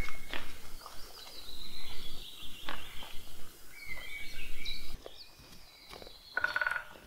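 Songbirds singing and calling in woodland: repeated short whistled notes and chirps. A low rumble underneath stops abruptly about five seconds in, and a short buzzy trill comes near the end.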